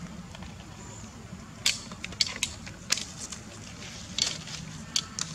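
Dry leaf litter crackling under the macaques' feet and hands as they move, in about half a dozen sharp snaps spread across the few seconds, over a steady low hum.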